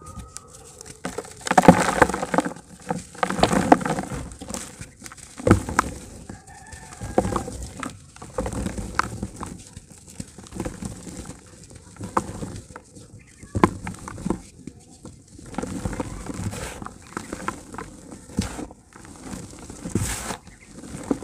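Hands crushing and crumbling dry grey dirt chunks in a plastic tub: irregular gritty crunches and sharp cracks, with crumbs and powder falling into the tub. The loudest crunches come about two and three and a half seconds in.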